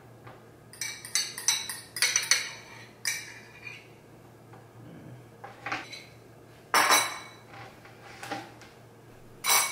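A metal fork clinking and scraping against a bowl as a sour cream mixture is scooped out and spread, a string of sharp clinks with a louder knock about two-thirds of the way through.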